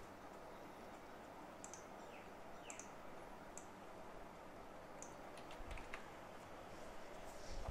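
A few faint, irregular clicks from working a computer's mouse and keys, over a low steady hiss.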